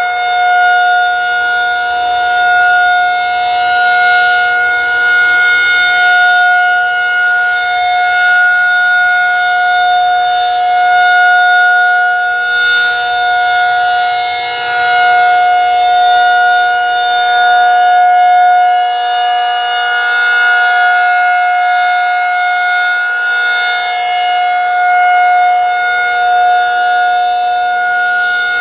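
Federal Signal 2001-SRN rotating outdoor warning siren sounding a steady alert: one continuous, unwavering tone of about 722 Hz with strong overtones. Its loudness swells and dips gently as the horn slowly rotates.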